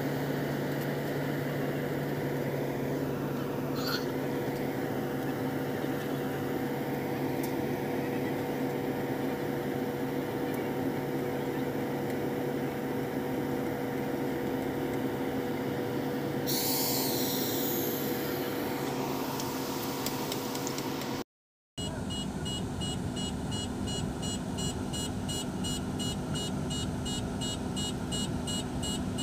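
A large road paver's engine runs steadily at a constant pitch, with a brief hiss about two-thirds of the way through. After a cut, a rapid electronic beeping of about four beeps a second sounds over the engine.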